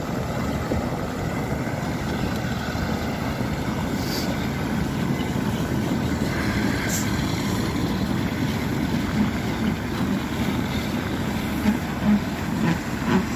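Heavy diesel engines of a wheel loader and a truck running under load, a steady dense rumble. Near the end it comes in short louder surges.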